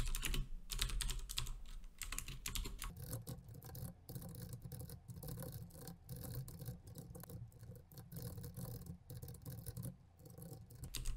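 Typing on a computer keyboard: irregular runs of key clicks, densest in the first few seconds.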